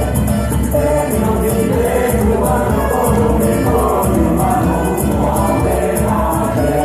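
Live music: a group of voices singing together over steady rhythmic percussion.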